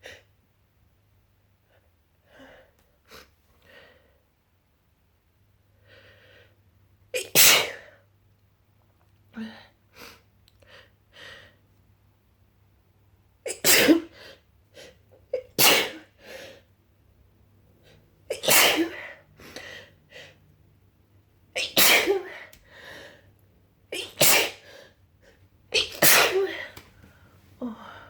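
A person in a sneezing fit: seven loud sneezes, the last six coming every two to three seconds, each led in by short catching in-breaths. Quieter breaths and gasps come before the first sneeze.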